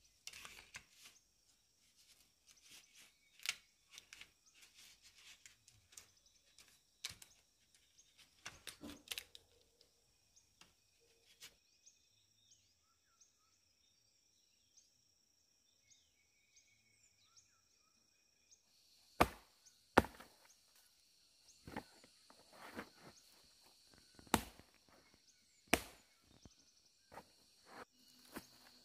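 Wood being chopped and knocked: lighter knocks and scrapes first, then after a quiet stretch a run of sharp, loud chopping strikes spaced about a second apart. A faint, steady insect drone fills the pauses.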